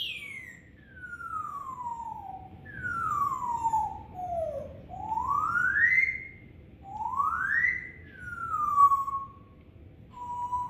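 African grey parrot making a series of long, slow whistled glides: two falling, two rising, then another falling, and a short steady note near the end.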